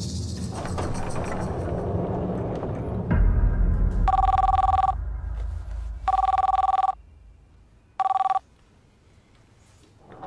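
Telephone ringing with an electronic two-note ring: two rings of under a second each, about two seconds apart, then a third ring cut short.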